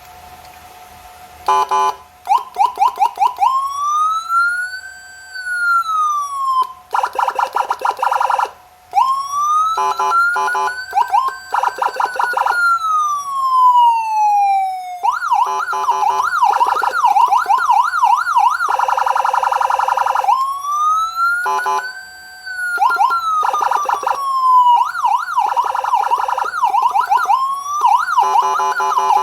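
Landun CJB100DA 100-watt handheld electronic siren playing standard Indonesian police patrol (PJR) siren tones. It starts about two seconds in and alternates slow rising-and-falling wails with fast warbling yelps and short choppy bursts, with brief breaks between patterns.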